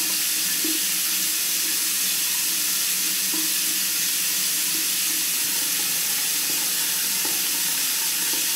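Tap water running steadily into a sink: an even, unbroken hiss.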